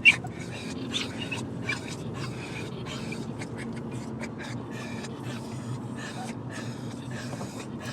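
Excited dogs panting hard and huffing in rapid, irregular breaths over the low rumble of the moving car, with one short high-pitched cry right at the start.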